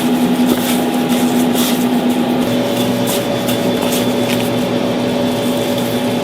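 Steady hum of a running electric machine, holding a constant low tone, with a second, higher tone joining about two and a half seconds in.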